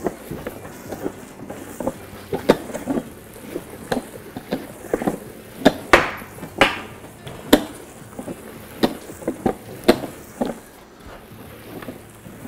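Hand-cranked stainless steel meat mixer churning a batch of ground venison, with irregular knocks and thuds, one to three a second, as the paddles turn and the meat mass flops against the tub. This is the final mix that works seasoning and cure into the sausage meat.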